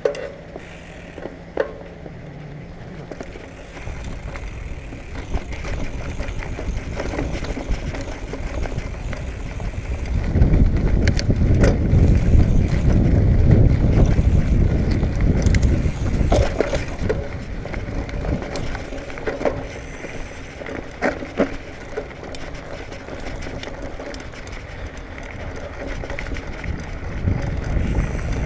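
Hardtail mountain bike, a Marin Bobcat Trail 5, riding over a dirt trail: tyres rolling on dirt with scattered clicks and knocks from the bike rattling over bumps, under a low rumble that grows louder about ten seconds in and eases off again after about sixteen seconds.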